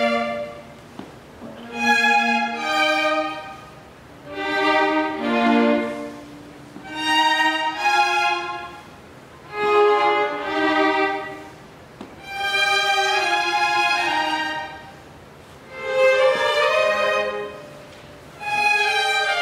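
A group of violins playing together in short phrases of a few bowed notes, each followed by a brief pause, repeating every two to three seconds.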